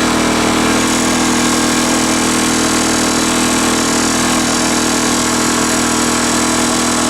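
Mountfield lawn mower's single-cylinder petrol engine running steadily, rebuilt on a homemade big-end bearing shell. There is an extra noise in it that the owner thinks is not coming from the engine.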